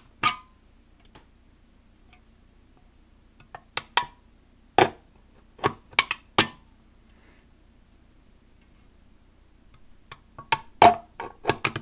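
Sharp clicks as the point of an X-Acto knife punches holes through a thin aluminium drink can, one at a time. They come singly and in quick little groups, with a quiet gap of a few seconds in the middle and a rapid run near the end.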